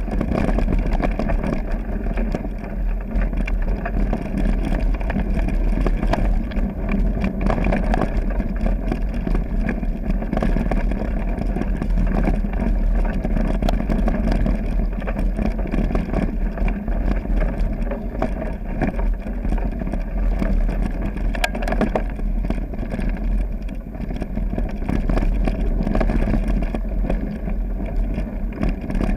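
Mountain bike rolling fast over a stony singletrack, heard from a bike- or rider-mounted camera: a steady rumble of wind and tyre noise, with frequent small rattles and knocks from the bike over the stones.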